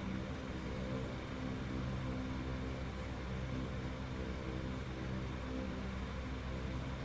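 A steady low mechanical hum with a layer of hiss, unchanging throughout.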